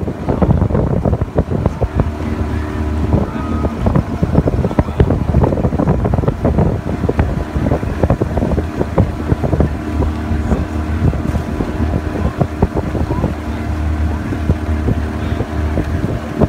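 Motor of a river launch running steadily at cruising speed, with wind buffeting the microphone throughout.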